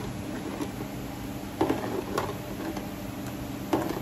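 Ladle stirring thick sweet soup in a pan, clicking and scraping against the pan; three louder knocks stand out, about one and a half, two and near four seconds in, over a steady low hum.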